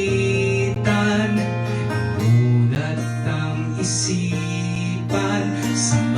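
Acoustic guitar strumming chords about once a second over sustained bass notes, an instrumental passage of a folk-pop song with no singing.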